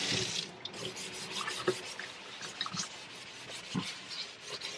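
Kitchen faucet running briefly, then shut off, followed by faint scratchy rubbing of a scrubber and cleaning paste on a stainless steel sink basin.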